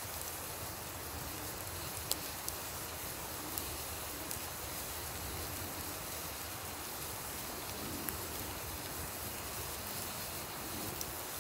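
Wood campfire crackling with a few scattered sharp pops, over the steady rush of a river.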